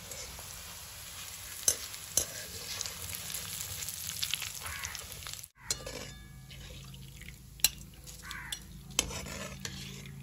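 Poha (flattened rice) deep-frying in hot oil in a metal kadhai, a steady sizzle, with a wire spider skimmer stirring and clinking against the pan a few times as the fried poha is scooped out. The sound drops out briefly about halfway through.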